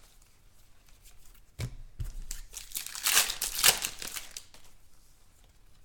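Trading card pack wrapper crinkling and tearing as a pack is opened, in short bursts about two and three seconds in.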